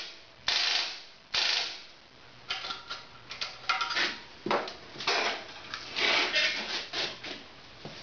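Harley-Davidson Evo Sportster starter clicking as the starter button is pressed, without cranking the engine: a sign of the starter fault, which comes down to bad battery cable leads. Two separate clacks come first, then an irregular run of quicker clicks.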